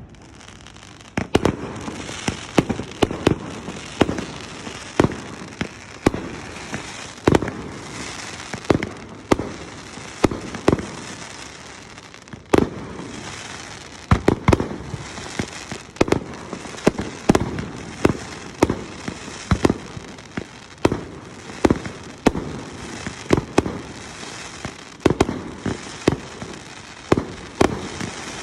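Fireworks going off: a continuous run of sharp bangs at an irregular pace, roughly one to three a second, over a steady crackling hiss.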